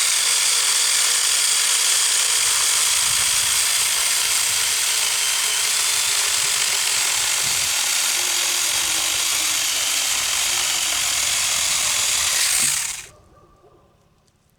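Saker mini electric chainsaw running with a steady high-pitched whine, its chain cutting through a small piece of firewood; the motor shuts off and winds down near the end.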